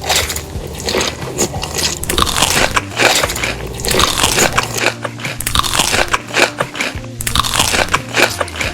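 Loud close-up crunching as crunchy food is bitten and chewed, many crisp crunches one after another, over background music.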